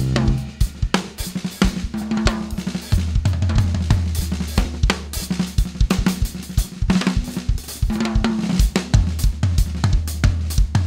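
Drum kit playing a busy groove of snare, kick drum, hi-hat and cymbals over a low sousaphone bass line, with the horns out. A held horn chord cuts off right at the start.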